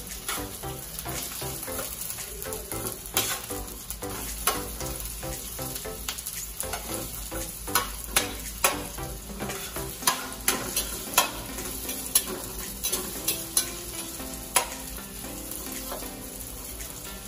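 Chopped onion and garlic sizzling in hot oil in a stainless steel frying pan as they are sautéed. A slotted spatula stirs them, tapping and scraping against the pan, and the taps come more often and louder in the second half.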